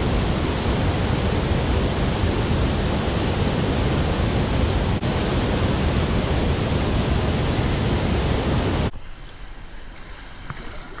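Waterfall rushing close by, a loud, steady wash of falling water. About nine seconds in it cuts off abruptly to a much quieter water sound with a few small clicks.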